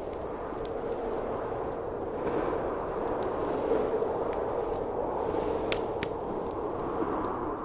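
Blizzard wind howling in slow swells, with a wood fire crackling: scattered sharp pops, a couple of louder ones late on.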